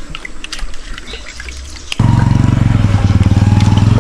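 Light scattered clicks and rustles, then about halfway through a loud engine sound starts suddenly and runs steadily with a fast, even pulse, like a motorcycle engine.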